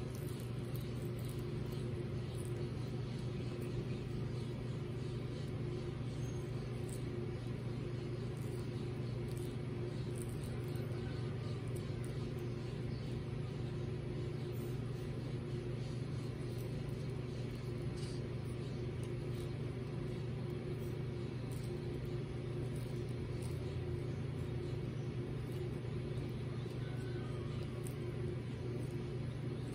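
Steady low mechanical hum with an even, unchanging pitch, and faint scattered ticks over it.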